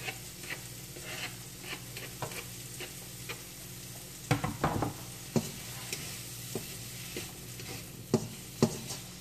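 Chopped onion sizzling in butter in a wok, with a spatula scraping and tapping on the pan and cutting board. There is a louder clatter about four seconds in and several sharp taps near the end, over a steady low hum.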